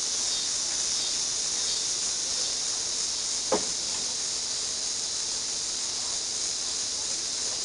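Steady, high-pitched insect chorus on a summer evening, heard through a security camera's hissy microphone, with one short, sharp sound about three and a half seconds in.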